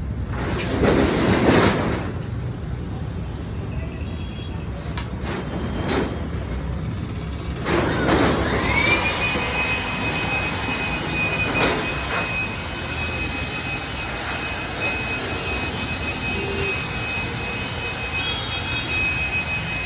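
Jakmister 950 W electric air blower switched on: a motor whine rises quickly and then holds a steady high pitch over a rush of air. Before it starts there are a few short knocks and bursts of handling noise.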